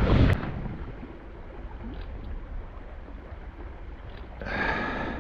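Shallow river riffle washing over stones, a steady rushing. A loud gust of wind on the microphone cuts off sharply just after the start, and a brief brighter burst with a slight ringing tone comes near the end.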